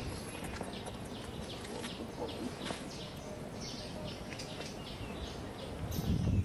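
Small birds chirping: repeated short, high chirps that drop in pitch, a few each second, over a faint outdoor background.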